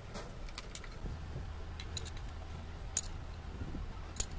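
Scattered light metallic clicks and ticks, about seven spread irregularly over a few seconds, as a small steel hand tool touches and taps metal parts, over a steady low hum.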